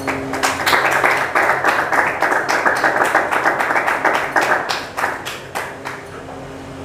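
Applause from a small crowd of people clapping by hand, dense for about five seconds, then thinning to a few last claps and stopping about six seconds in.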